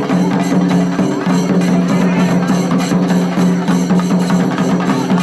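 Shinkari melam percussion: chenda drums struck in a fast, driving rhythm over a steady low sustained tone.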